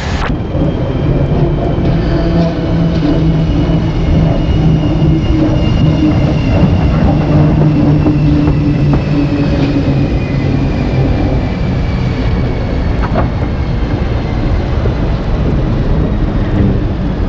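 Electric locomotive with its train running past: a steady rumble of wheels on rail, with a thin motor whine that falls slowly in pitch.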